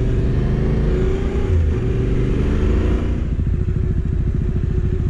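Motorcycle engine running while riding. About three seconds in it eases off and settles into a steady, evenly pulsing idle.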